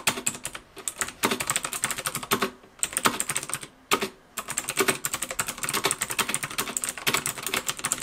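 Fast typing on a Motospeed CK80 keyboard with clicky optical Zeus silver switches and PBT keycaps: a quick run of keystrokes, quite noisy, like Cherry MX Blues. The run breaks off briefly twice, about a third of the way in and again halfway.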